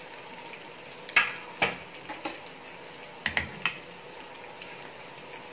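Cumin potatoes (jeera aloo) frying in oil in a pan with a steady sizzle. A metal spatula knocks and scrapes against the pan in two short clusters as the potatoes are stirred.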